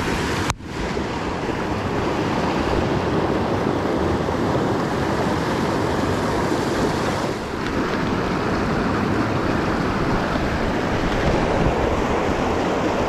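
Fast-flowing creek water rushing steadily, with a brief break in the sound about half a second in.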